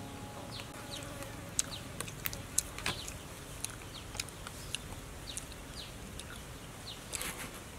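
Repeated short, falling chirps of a small bird, several each second or two, over quiet outdoor ambience, with a few sharp clicks between about one and a half and three seconds in and again near the end.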